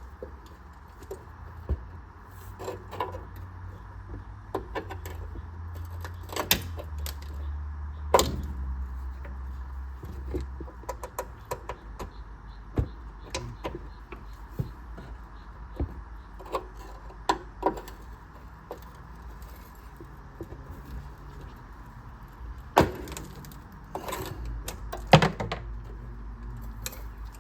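Scattered metallic clicks, taps and clinks of hand tools prying at the retaining clip that holds a car's brake line to its bracket. The loudest knocks come about eight seconds in and again near the end, over a steady low hum.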